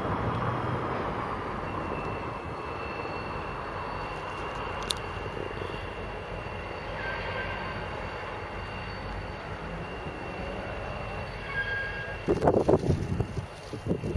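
Irish Rail Class 071 diesel-electric locomotive, its EMD two-stroke engine running as it slowly shunts spoil wagons, heard at a distance with a faint high steady whine over the rumble. Wind buffets the microphone near the end.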